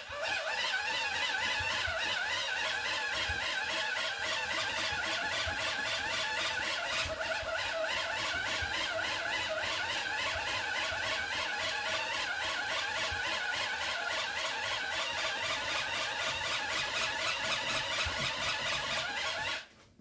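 Hand-crank dynamo of an emergency radio being wound, its small gear train whirring steadily with a pitch that wavers with each turn, stopping suddenly near the end. The cranking generates charge for a phone plugged into the radio.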